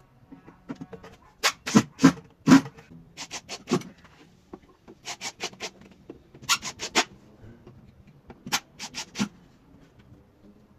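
Nail gun firing into plywood cabinet panels: sharp shots in quick runs of three or four, about five runs.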